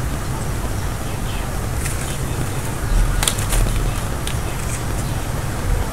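Steady background hiss with a few light clicks and a soft low bump about three seconds in, from coloured pens being handled on a desk.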